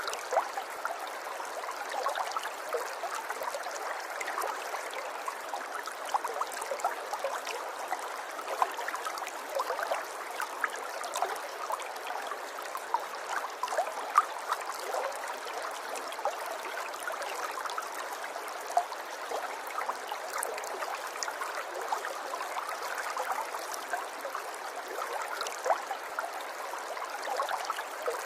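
River water flowing and burbling steadily, with many small splashes and gurgles over a continuous rush.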